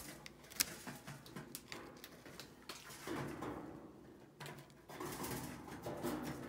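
A chinchilla nibbling dry grain flakes from a hand: quick, small, crisp crunching clicks, with denser rustling from about three seconds in.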